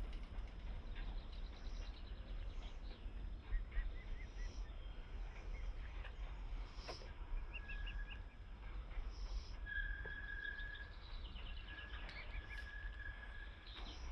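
Small birds chirping and trilling here and there over a steady low rumble. In the second half a thin, steady high whistle comes and goes.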